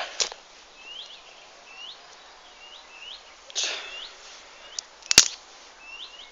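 A bird repeatedly giving a short rising chirp, about one a second, over rustling as sticks are moved by hand at a small campfire, with one sharp snap about five seconds in.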